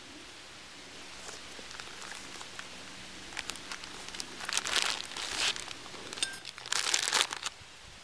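A black mesh stuff sack with a drawstring cord lock being handled, its fabric rustling and crinkling. The noise builds from about a second in, is loudest in two spells around five and seven seconds in, and stops near the end.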